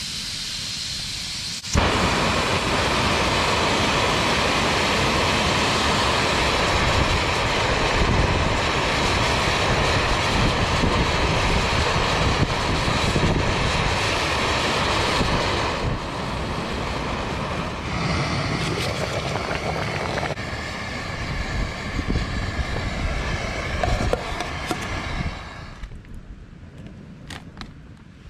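Coleman Fyrestorm gas stove being lit: a light gas hiss, then the burner catches suddenly about two seconds in and runs loudly and steadily, a rushing noise with a faint whistle in it. The sound shifts a few times as the flame is adjusted and cuts off a couple of seconds before the end.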